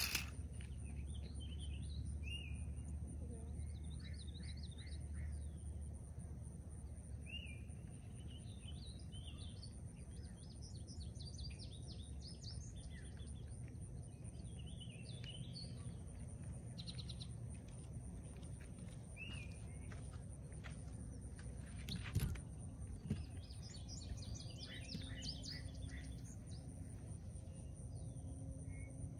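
Several wild birds singing and chirping on and off over a steady low background rumble, with a single sharp knock about three-quarters of the way through.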